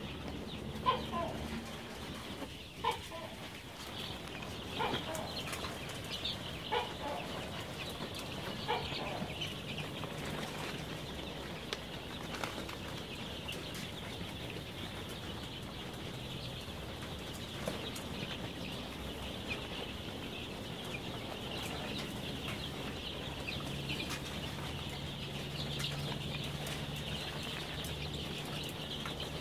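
A large flock of young chicks peeping all together, a dense and steady high chirping. Several louder single calls stand out in the first ten seconds. A low steady hum runs underneath and grows stronger in the second half.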